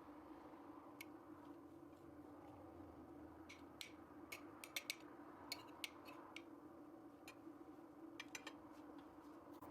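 Faint sharp clicks and ticks, a few scattered and two quick clusters, one in the middle and one near the end, over a steady low hum.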